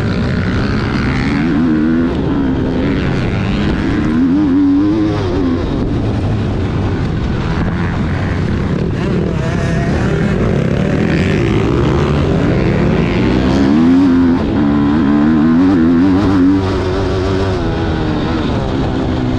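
Motocross bike engines revving on a dirt track, the pitch rising and falling over and over as throttle is opened and closed, loudest about two-thirds of the way through.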